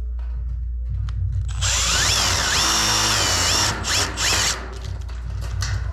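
Power drill driving a fine-thread drywall screw through a steel stud track into a fire-coated concrete ceiling. It runs for about two seconds, its pitch dipping and climbing as the load changes, then gives two short bursts to seat the screw.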